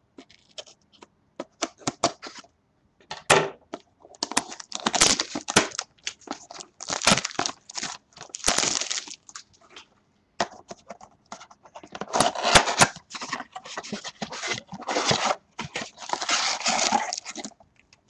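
Packaging being torn open and crinkled as a sealed box of trading cards is unwrapped, in irregular bursts of rustling and tearing.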